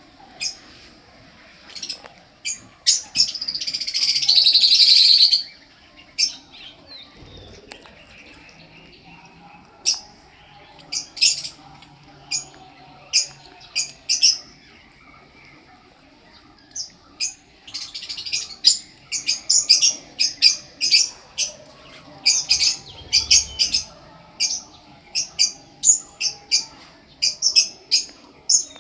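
Guinea pig wheeking: loud, high-pitched squeaks repeated again and again, with one longer held squeal about four seconds in and quick runs of squeaks through the second half.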